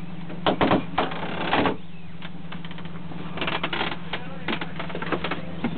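Clattering and knocking of gear being handled and moved about in a small boat cabin's lockers, in two bursts, over a steady low hum.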